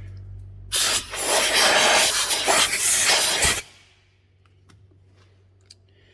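A machine's steady low motor hum, then a loud rushing, scrubbing noise for about three seconds that cuts off sharply, leaving only a faint hum.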